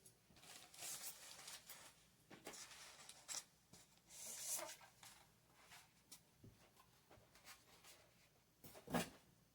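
Faint rustling and scraping of packaging being handled during an unboxing, with a single short knock near the end.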